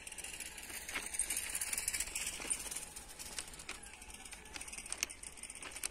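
Slow, irregular footsteps crunching on railway track ballast stones, a handful of steps over a steady high outdoor hiss.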